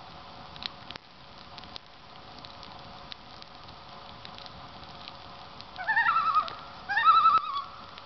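Common loon giving two quavering tremolo calls near the end, the first starting high and dropping, over the steady crackle and pops of a wood campfire.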